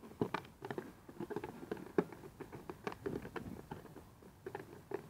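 Doberman chewing on a red plastic frisbee: teeth clicking and scraping on the plastic in quick, irregular clicks.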